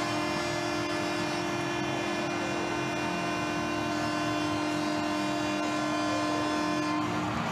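Arena goal horn sounding in one long steady blast over a cheering crowd, signalling a home-team goal. The horn cuts off near the end.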